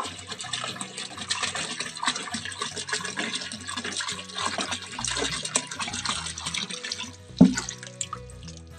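Water poured from a plastic jerrycan into a large basin already full of water: a steady splashing stream that thins to drips near the end. A single thump about seven seconds in.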